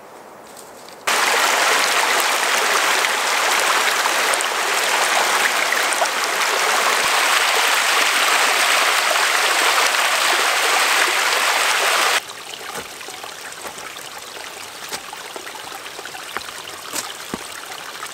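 Small mountain stream splashing down a cascade over rock slabs: a loud, steady rush that starts suddenly about a second in and cuts off sharply near 12 seconds. After it comes a much quieter stretch with light, scattered footfalls on the trail.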